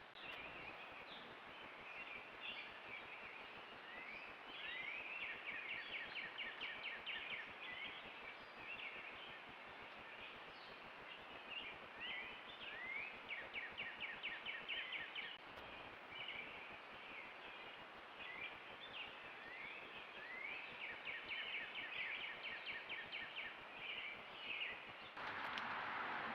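A songbird singing the same song over and over, a quick rising note followed by a rapid trill, repeated every few seconds over a steady outdoor hiss. About a second before the end a louder hiss comes in.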